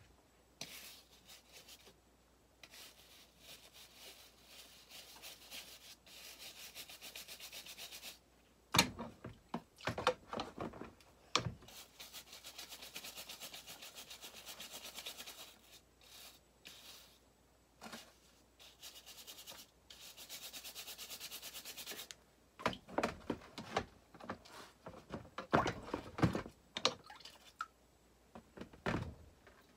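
A brush scrubbing rust off the metal of a pair of tongue-and-groove pliers, in several spells of fast, even strokes lasting a few seconds each. Between the spells come sharp metal knocks and clatter as the pliers are handled, the loudest about nine seconds in and in a cluster near the end.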